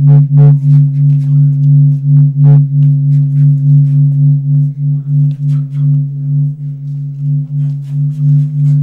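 A low droning tone that swells and fades two or three times a second, with light scattered knocks that fit dancers' footsteps on a tiled floor.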